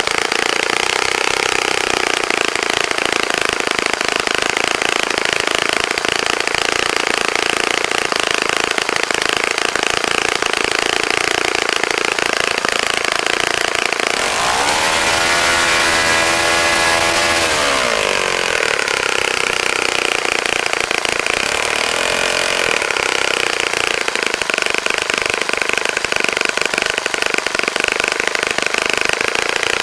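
A Saito FA-65 four-stroke glow engine turning a 12x6 propeller runs steadily at high speed on its first run after a rebuild. About halfway through, its note swings in pitch and grows briefly louder and harsher for a few seconds, then settles back to a steady run.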